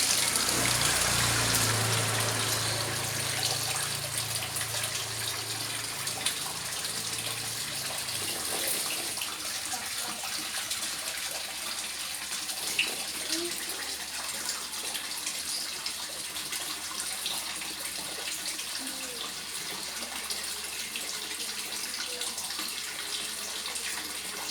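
Water trickling and splashing steadily into a koi pond. A low hum sits under it for the first several seconds, then fades.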